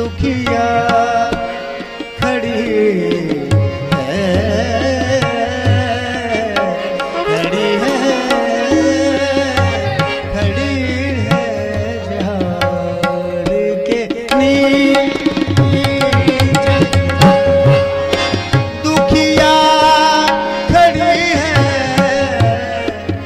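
Qawwali music: a singer draws out a long, ornamented vocal line over tabla and a steady held harmonium note.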